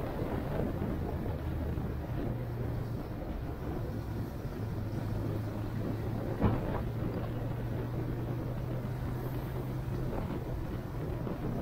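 A vehicle on the move: a steady low engine drone under road and wind rumble, with one sharp knock a little past halfway.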